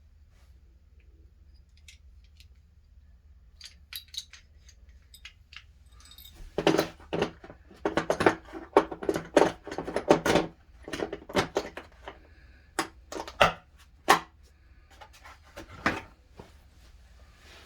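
Metal tool pieces of an HVAC pipe extender kit clinking and clattering as they are handled. There are a few light clicks, then a run of rapid clattering a third of the way in, then scattered single clicks.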